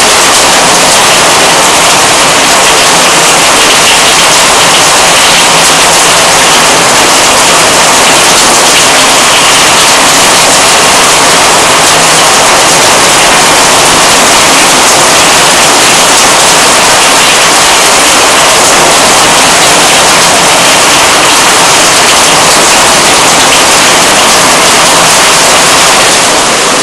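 Heavy rain pouring down onto the street and pavement in a thunderstorm: a loud, steady hiss.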